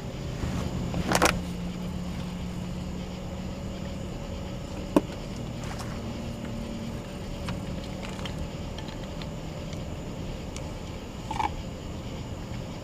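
A boat motor running with a steady low hum, with a few sharp clicks and knocks over it, the loudest a single knock about halfway through.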